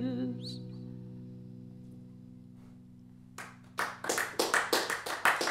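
The final chord of an electric guitar rings out and slowly fades as the sung note trails off. Then, about three and a half seconds in, a few people start clapping, building to steady applause.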